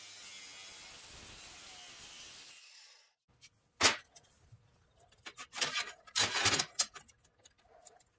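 Angle grinder with a cut-off disc steadily cutting through steel bar stock, its hiss stopping about two and a half seconds in. After that comes one sharp metal knock, then a run of clanks and clatters as the cut steel pieces are handled.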